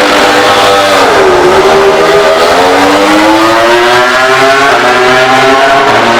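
MotoGP racing motorcycle's four-cylinder engine. Its pitch drops about a second in, then climbs steadily over several seconds as the bike accelerates.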